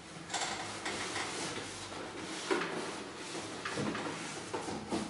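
Cardboard shipping box being handled: flaps and walls scraping and rustling, with a few dull knocks as the contents are shifted inside it.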